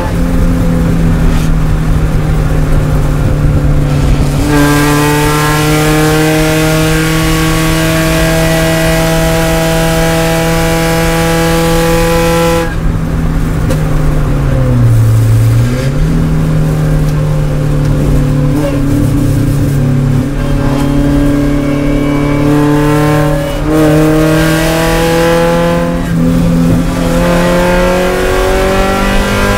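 Spec Miata race car's four-cylinder engine, heard from inside the cockpit, running hard at high revs under racing load. Its pitch holds nearly level, dips briefly about halfway through as the driver lifts, then climbs back. A broad rushing hiss rises over the engine for several seconds in the first half.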